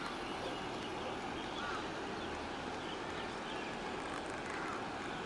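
Faint, scattered chirps of small birds over a steady rushing background noise.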